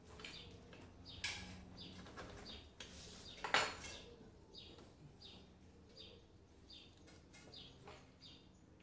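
A bird chirps repeatedly, short high calls about twice a second, over the faint handling sounds of a rubber spline being pressed into an aluminium screen frame. There is a louder clack about three and a half seconds in, and a smaller one just after the first second.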